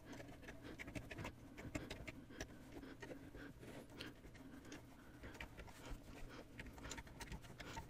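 Faint rustling and light ticks of yarn being wrapped around the plastic pegs of a KB Super Afghan Loom.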